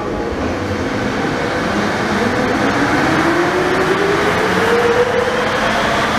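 Rubber-tyred VAL automatic metro train running through a tunnel, with a whine that rises in pitch over a few seconds. Another metro train passes close by on the adjacent track from about four seconds in.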